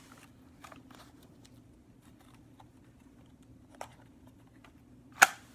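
Plastic clicks and rattles from a Nerf AccuStrike foam-dart blaster being handled, a few faint clicks and then one sharp, louder click near the end, over a faint steady hum.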